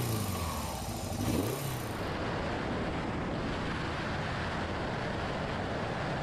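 Laverda Jota 1000cc three-cylinder motorcycle engine revved twice, its pitch rising and falling with each blip. About two seconds in it gives way to a steadier engine sound as the bike is ridden along the road.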